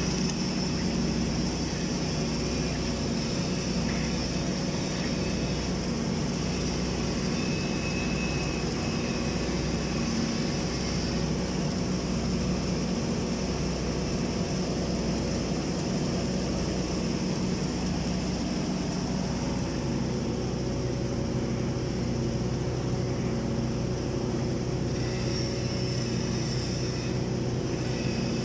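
Steady machine hum of an automatic girth welding (submerged arc) machine running along a storage tank's horizontal seam, laying the final weld layer, with a slow low pulsing under it.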